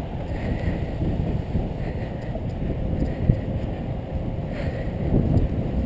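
Wind buffeting the microphone of a handlebar-mounted GoPro HD Hero2 on a moving road bike: a steady low rumble, with a brief knock about three seconds in.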